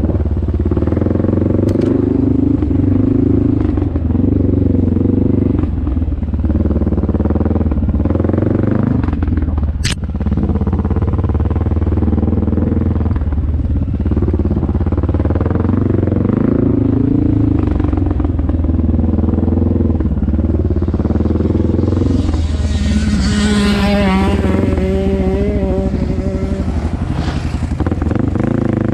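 Honda XR650L single-cylinder four-stroke dirt bike running on a trail, its engine note rising and falling as the throttle opens and closes, with a sharp click about ten seconds in. Near the end a second, higher wavering engine note swells and fades over a few seconds.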